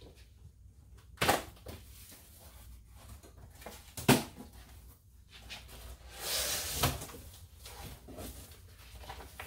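Cardboard shipping box being opened by hand: a couple of sharp knocks from the box and its flaps, the loudest about four seconds in, then cardboard and tape rasping for about a second.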